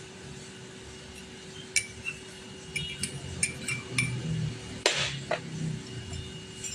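Light clinks of a glass and kitchen utensils while the pounded miana leaf and turmeric mixture in hot water is strained, a scattered handful of taps with the sharpest about five seconds in, over a faint steady hum.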